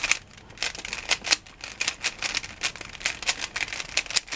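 Rubik's cube being handled and turned by hand: a quick, irregular run of plastic clicks and clacks as the layers are turned.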